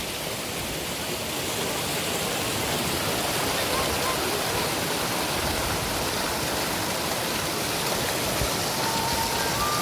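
Waterfall's steady rush of falling water. A faint held tone comes in near the end.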